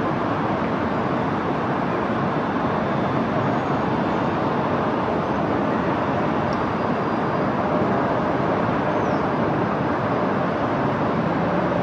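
Distant city traffic heard from high above the streets: a steady, even wash of noise with no distinct events.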